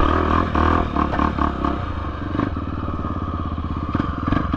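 Dirt bike engine running under the rider as it climbs a dirt trail, with some chassis clatter. The engine note is stronger early on and eases off about halfway through as the bike slows.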